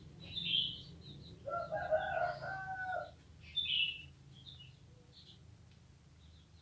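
A rooster crows once, a call of about a second and a half starting about a second and a half in. Short, high chirps come before and after it.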